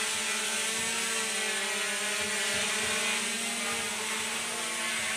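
Small quadcopter drone with brushless motors hovering, its spinning propellers giving a steady whirring hum whose pitch wavers slightly as it holds position.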